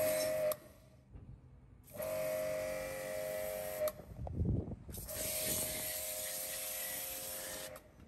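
Small electric pressure washer running in three bursts: its motor makes a steady whine under the hiss of the water jet, and the sound stops and starts again with each squeeze of the spray-gun trigger.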